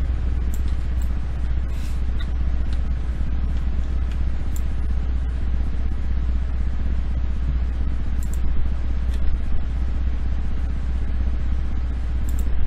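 Scattered computer keyboard key taps over a steady low hum.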